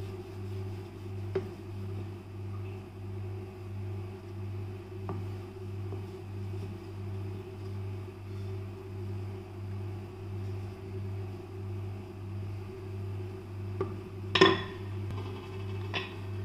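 Wooden rolling pin working chhena on a wooden chopping board, with a few sharp wood-on-wood knocks, the loudest near the end. A steady low hum that swells and fades regularly runs underneath.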